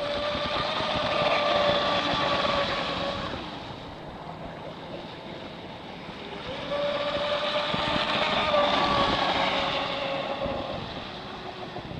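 Blackjack 26 RC boat on a 6-cell LiPo running fast on the water: a steady high electric-motor whine with water hiss. It swells and fades twice as the boat passes. The boat is held to about half power by the speed controller's low-voltage cutoff, according to the owner.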